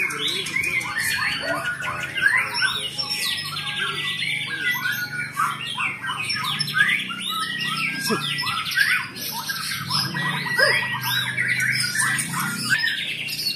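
Many caged white-rumped shamas (murai batu) singing at once: a dense, unbroken mix of overlapping whistled phrases, chirps, quick up-and-down sweeps and fast trills.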